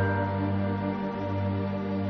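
Background music of soft piano and strings, with slow, held notes.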